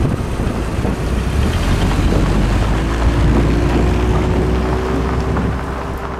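A car's engine running with a deep rumble as the car pulls away and drives off; the sound fades near the end.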